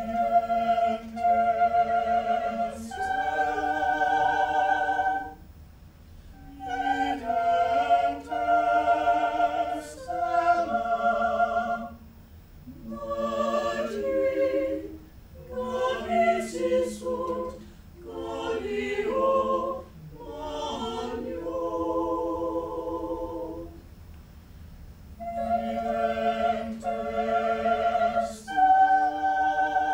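Small mixed-voice chamber choir singing a cappella: sustained chords in phrases, with short breaths between them and a longer pause about two-thirds through.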